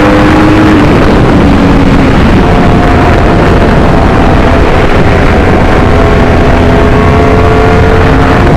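Yamaha YZF-R1's crossplane inline-four engine running while riding. Its pitch eases down over the first couple of seconds, then climbs slowly as the bike gathers speed, over a loud, steady rushing noise.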